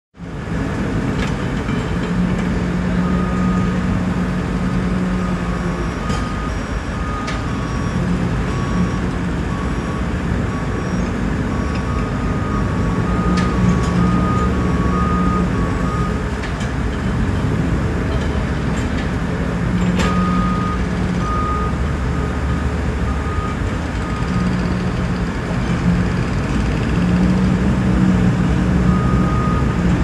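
Construction site: heavy diesel machinery runs with a steady low drone, and a reversing alarm beeps in runs that stop and start. A few sharp knocks stand out now and then.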